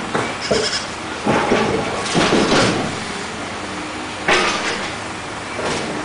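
Young kid goat bleating, a run of cries about a second in and another just past four seconds, over steady background noise.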